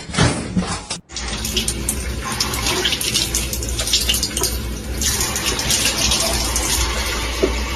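Running water, a steady splashing rush that starts abruptly about a second in, after a moment of clattering.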